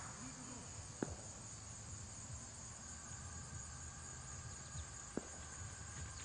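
Steady high-pitched drone of an insect chorus over faint open-air hiss, with a sharp click about a second in and a softer one about five seconds in.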